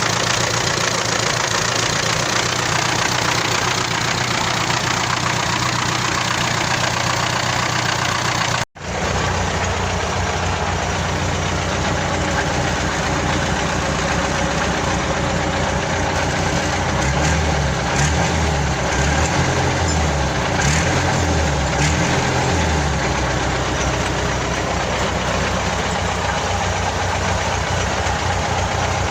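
MTZ-82 tractor's four-cylinder diesel engine idling steadily. The sound cuts out abruptly for a moment about nine seconds in, and the engine note swells a little around seventeen to twenty-two seconds in.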